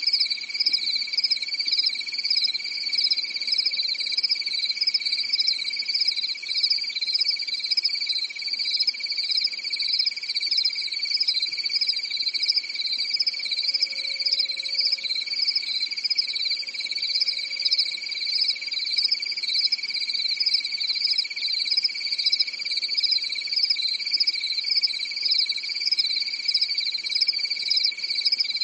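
Steady chorus of insects: a continuous high whine with a shrill, evenly pulsing trill above it.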